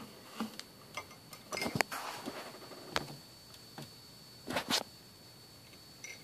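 Watercolor painting supplies being handled: a scattering of light clicks and taps, with two short clusters of clatter about one and a half seconds in and again near the end, and a single sharp click about three seconds in.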